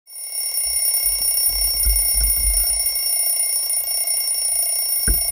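Digital alarm clock sounding a continuous high-pitched electronic alarm tone that cuts off abruptly at the end, with some low thuds underneath.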